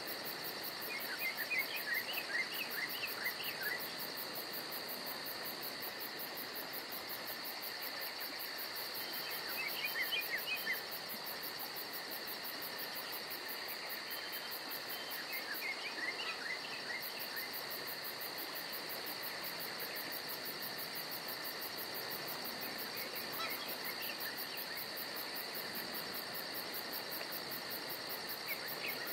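Steady chorus of crickets and other insects: a constant high drone with a very fast, even pulsing above it. Five short bursts of quick, high chirping notes cut through it, about a second in, near the middle, and near the end.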